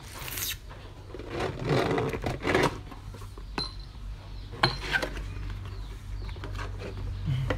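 A cardboard box of new drinking glasses being opened and handled: cardboard flaps rustling and scraping in uneven bursts, with a few sharp clicks, the loudest about four and a half seconds in.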